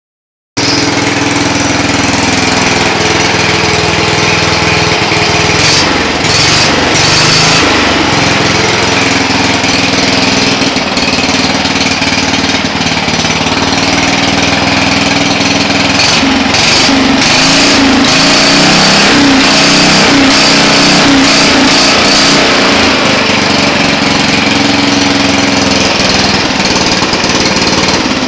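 Lawn mower engine running loud and close, its speed rising and falling as the throttle is worked through a foot-operated gas pedal.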